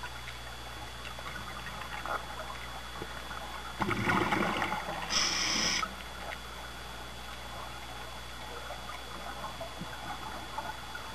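Underwater, heard through a camera housing: a steady faint crackling, and about four seconds in a loud two-second gush of scuba exhaust bubbles from a diver's regulator.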